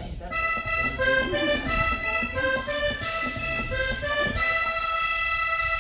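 Recorded cumbia music: an accordion playing a melody of quick short notes that ends on one long held note.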